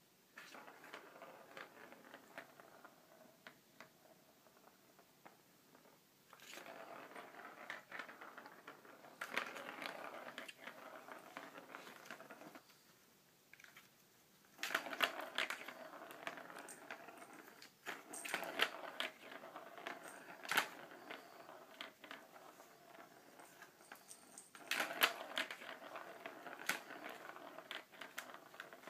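A ball rolling inside a plastic cat track toy as cats bat it along: a faint rattling rumble in four runs of several seconds each, broken by sharp clicks and knocks as paws and the ball strike the plastic track.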